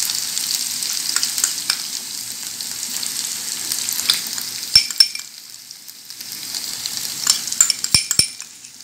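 Ginger-garlic paste frying in hot oil, sizzling and crackling steadily as a thick nut-and-coconut paste is spooned into the pan. A few sharp metal clinks of the spoon come about five seconds in and again near the end.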